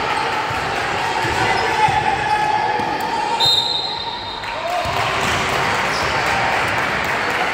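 Youth basketball game in a gym: basketballs bouncing amid a steady murmur of players' and spectators' voices, with a brief high tone about three and a half seconds in.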